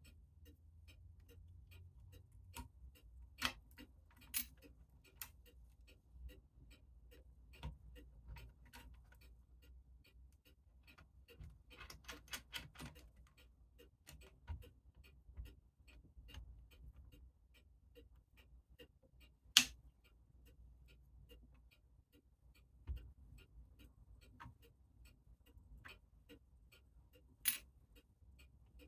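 Steady rapid ticking of clocks, with a few sharp metallic clicks and knocks from the parts of a mainspring winding tool being handled, and a short run of quick clicks about twelve seconds in.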